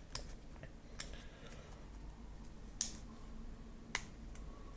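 Quiet handling of small metal keycaps and their packaging: a few short, sharp clicks, four in all, the two loudest a little more than a second apart in the second half.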